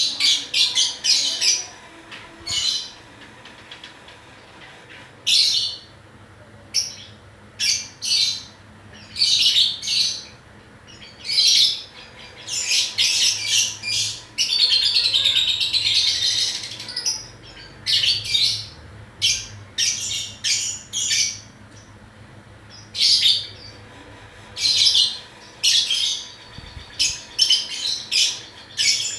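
Pet lovebird chirping in short, sharp, high-pitched bursts at irregular intervals, with a longer run of warbling chatter about halfway through.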